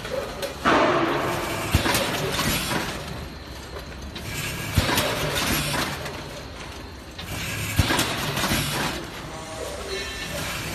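Vertical form-fill-seal packing machine bagging potato chips: a steady low hum, a sharp clack about every three seconds with each bag cycle, and a rustling rush between the clacks.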